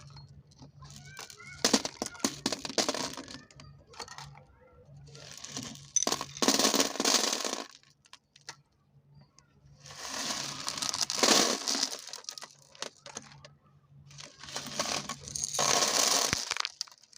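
Marbles rolling and clattering along a marble run in four surges of dense clicking and rattling, each lasting one to three seconds with quieter gaps between.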